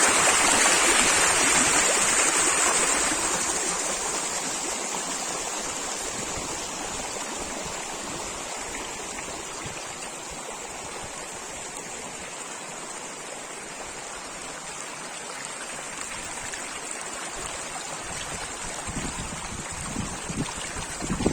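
Mountain stream water running, louder for the first few seconds and then fading to a steady, softer rush. Low rumbling gusts of wind on the microphone come in near the end.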